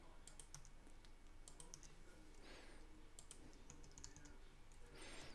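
Faint computer keyboard typing: a few quick key clicks in small clusters, with pauses between them.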